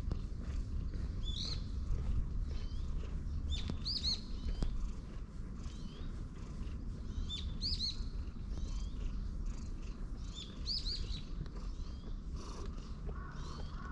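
Long-haired brown tabby cat purring steadily as it is stroked under the chin and on the head. A small bird's short chirping call repeats about every three seconds.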